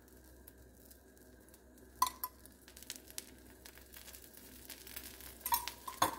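Faint sizzle of oil spooned around a dosa on a hot iron tawa, with sharp metal clinks of the spoon that ring briefly: a pair about two seconds in and another pair near the end.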